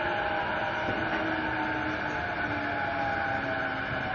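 Inside a JR East E233-5000 series electric train under way: steady rumble of the wheels on the rails with the traction motors' whine sliding slowly down in pitch, as the train slows.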